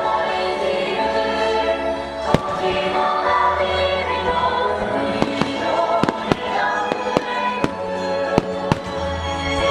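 Firework shells bursting in a starmine barrage: sharp bangs over continuous music, one loud bang a little over two seconds in, then a quicker run of about eight bangs in the second half.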